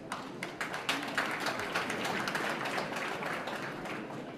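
Audience applauding: scattered claps thicken into dense applause about a second in, then thin out near the end.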